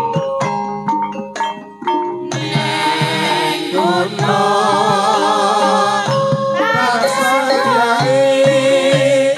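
A Javanese gamelan ensemble plays a langgam, its struck bronze keys and gongs ringing. About two seconds in, three female sinden singers come in together, singing with a wavering vibrato over the gamelan.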